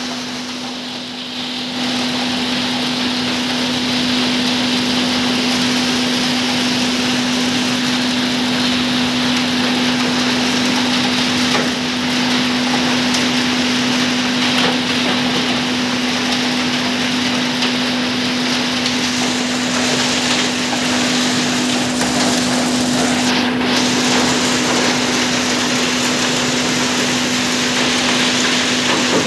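Heavy material-handling machinery running steadily over a conveyor of crushed stone: a loud, even rushing noise with a constant low hum.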